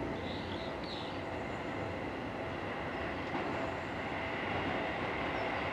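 Seibu 6000 series electric commuter train approaching slowly over station points: a steady rumble of wheels on rail, with a high tone that grows stronger toward the end.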